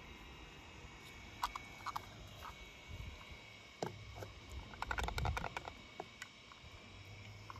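Light clicks and knocks of a small die-cast toy bus being handled and set down into a plastic tub of paint. A quick cluster of rattling clicks comes about five seconds in, over a faint steady high hum.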